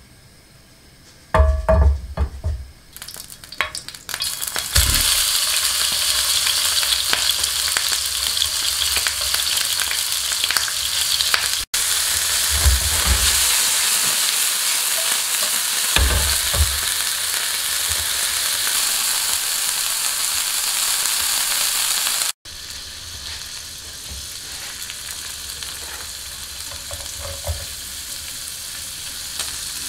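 Thin-sliced beef stir-frying over high heat in a non-stick frying pan: a steady, loud sizzle with the clatter of the meat being stirred and tossed. A few knocks come about a second and a half in, before the sizzle starts, and the sizzle suddenly gets quieter about two-thirds through.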